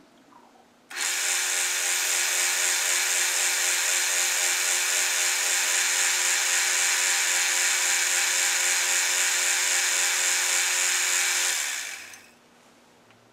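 Metal lathe running steadily with a whine of several fixed tones and a hiss while a cutting tool turns down a thin, springy drill-rod pin held in a four-jaw chuck. It starts abruptly about a second in and dies away as the chuck spins down near the end.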